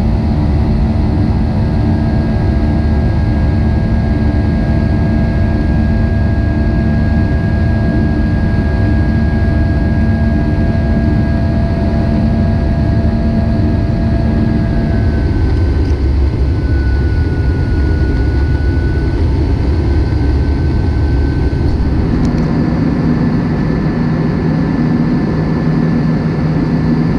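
Airbus A320 jet engines and airflow heard inside the cabin during the climb after takeoff: a loud, steady roar with a low drone and a thin high whine. The engine tones shift about halfway through and change again about three-quarters of the way through.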